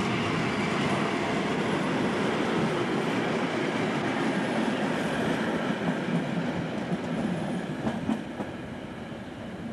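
Electric-hauled passenger train rolling past, its coaches' wheels running on the rails in a steady rushing clatter, with a couple of sharper clicks about eight seconds in. The sound eases off slightly near the end.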